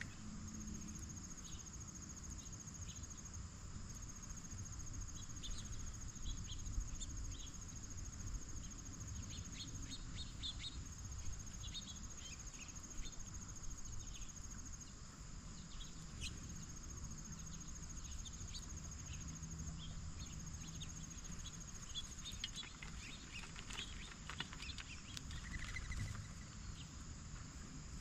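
Insects, most likely crickets, trilling steadily in long stretches of several seconds, with scattered short chirps and clicks over a low outdoor rumble.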